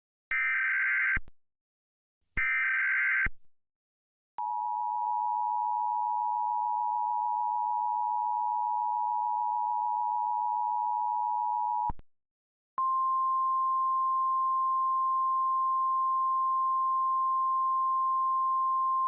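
Emergency Alert System tones announcing a High Wind Warning: two short bursts of the screeching digital SAME header data, then after a pause the steady two-tone attention signal for about seven seconds, and after a brief gap a single steady tone that continues to the end.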